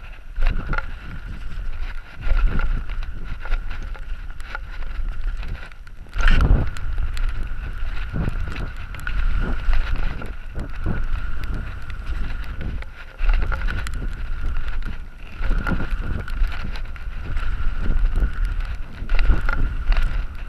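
Mountain bike ridden fast down a gravel forest trail: wind on the microphone, tyres rolling over loose gravel and the bike rattling over bumps. A steady high tone runs through it, and there is a hard knock about six seconds in.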